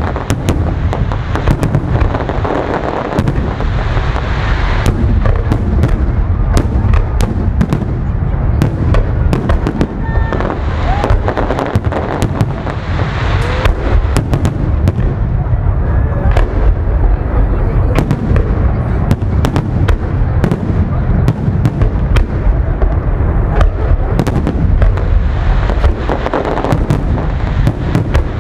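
Loud fireworks salute: many aerial shells bursting overhead in quick, overlapping succession, a continuous run of bangs and crackles over a steady low booming.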